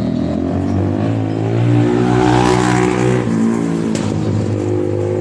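Yamaha Fino scooter's single-cylinder engine running, revved up once and dropping back after about three seconds, with a noisy drone from the CVT side. The owner calls the noise very loud, from the worn CVT-side bearing he is about to replace.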